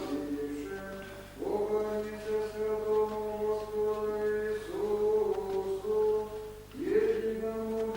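Church choir chanting in long held notes over a steady low held note, with new sung phrases entering about a second and a half in, near the middle, and about a second before the end.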